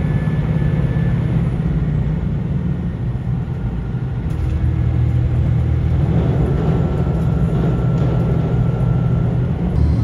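Limited express train heard from inside the passenger car: a steady low rumble of the train running, growing a little louder about halfway through.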